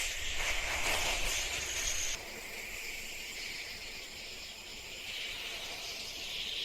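Steady hissing ambient background noise that drops a little in level about two seconds in.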